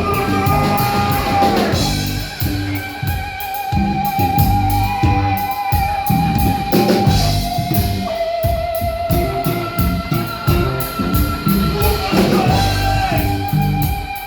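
Live rock band playing, with a drum kit, bass and electric guitar. A long held note with a wavering pitch runs over the beat through the middle.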